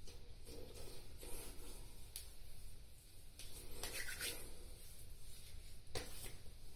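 Hands rubbing post-shave balm between the palms and over the face: faint, soft rubbing strokes of skin on skin, a handful of them.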